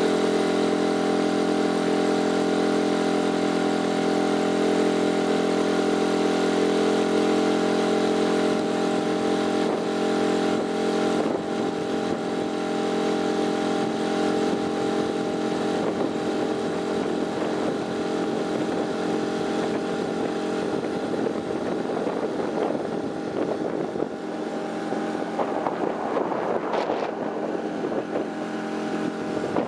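Suzuki 5 hp outboard motor running steadily at cruising throttle, pushing a small inflatable boat; the engine note drops slightly in level about a third of the way in and then holds.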